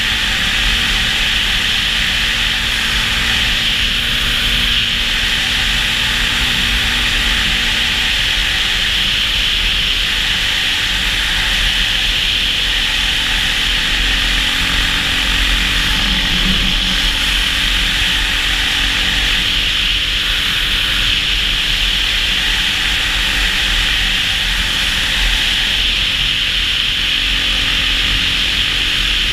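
Quad ATV engine running at a steady cruising speed, mostly buried under loud, steady wind rush and rumble on the microphone, its pitch shifting slightly now and then.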